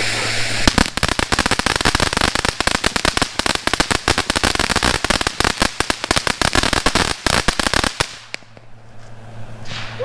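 Ground fountain firework spraying sparks: a steady hiss, then from under a second in a dense, rapid crackling that runs about seven seconds and stops near the end as the fountain burns out.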